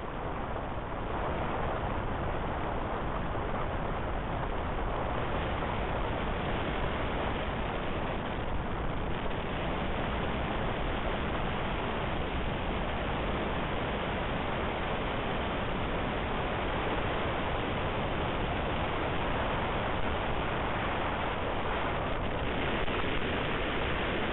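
Steady rush of air over a glider's canopy in flight, heard from inside the cockpit.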